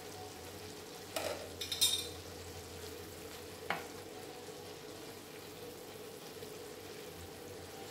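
A spoon stirring a thick chicken curry with fenugreek leaves in a pan as it simmers, with a few scrapes and clinks about a second in and a single sharp click a little later, over a steady low hum.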